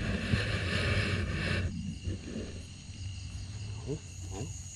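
Water splashing and churning for about a second and a half, which stops suddenly, then insects chirping steadily in the background.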